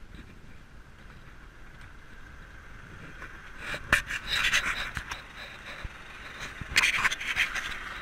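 Two bouts of scraping and rustling close to the microphone, about four seconds in and again near the end, with sharp clicks among them. This is handling noise from a hand-held camera rubbing against hand and clothing as it is carried.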